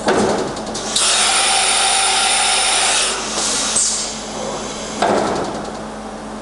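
Leadwell VMC-40 CNC vertical machining centre running through its program: a steady machine hum, a sudden burst of noise at the start, a loud hissing stretch of spindle and axis movement for about two seconds, and another burst about five seconds in.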